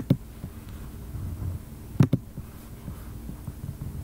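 Two quick computer mouse clicks about two seconds apart, each a sharp press followed by a release, over a faint low hum.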